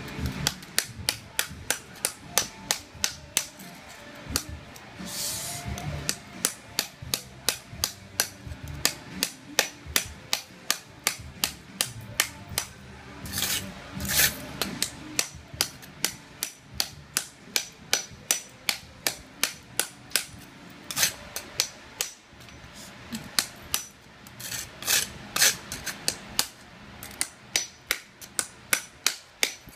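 Hammer striking a chisel held against ceramic floor tile in steady repeated blows, about two to three a second with a few short pauses, chipping the tile up.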